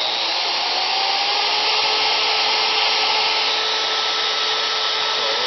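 DeWalt DWM120K deep-cut variable-speed portable band saw running, its motor whine rising in pitch over the first two seconds as the speed is varied with the trigger, then holding steady.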